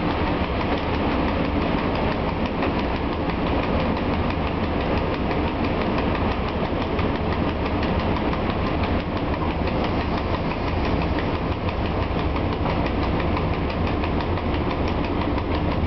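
Running noise in the cab of an ET22 electric locomotive under way: a steady rumble with a fast, irregular clatter of wheels over the track.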